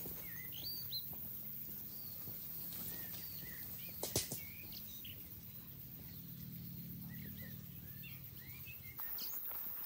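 Small forest birds chirping in short, scattered rising and falling calls over a steady low hum, with a sharp snap about four seconds in.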